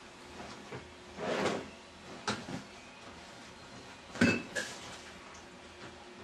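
A few separate knocks and clatters, the loudest a little after four seconds in, with a short rushing noise about a second in, the kind of sound a cupboard, drawer or door makes when shut.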